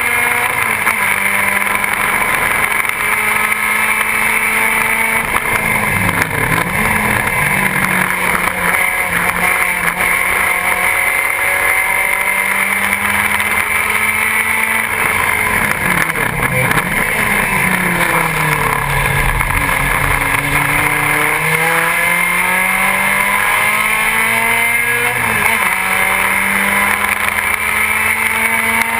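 BMW 2002 race car's four-cylinder engine at high revs, heard from inside the cockpit, loud and continuous. The engine pitch drops sharply and climbs back about six seconds in and again near the end, and sinks more slowly in the middle before rising again under acceleration.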